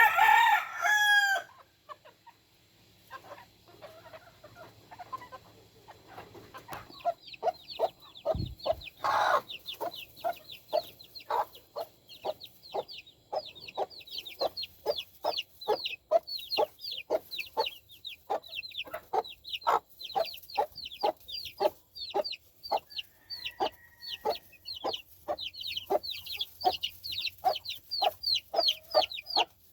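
A game rooster crows once, loudly, in the first second and a half. After a lull, from about seven seconds in, chickens cluck steadily in a quick run of short calls, about two or three a second. There is a dull thump about eight seconds in.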